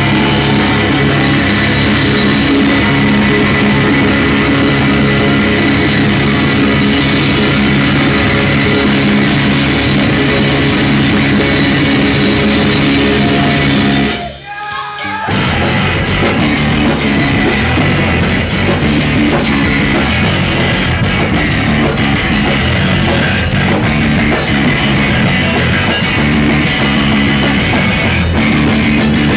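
Math rock band playing live and loud: two electric guitars, electric bass and drum kit. About halfway through the band stops dead for about a second, then crashes back in together.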